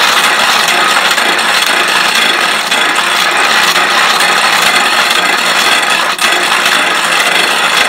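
Hand-cranked geared bench grinder spinning fast, its gears whirring, as the end of a metal bar is held against the abrasive wheel and ground to a sharp edge. A loud, steady grind with one brief dip about six seconds in.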